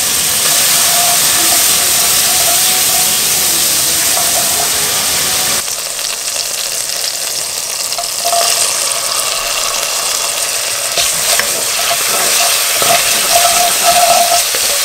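Chopped tomato and spices frying in ghee in a cast iron pan, sizzling steadily. In the second half, frozen peas are tipped in and a wooden spatula stirs them, adding scraping clicks over the sizzle.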